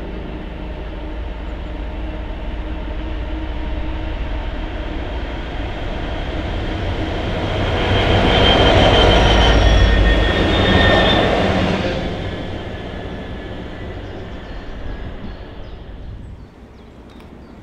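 A pair of Class 66 diesel locomotives coupled together and running light, their EMD two-stroke engines running with wheel and rail noise. The sound grows as they approach, is loudest as they pass about halfway through, then fades as they move away.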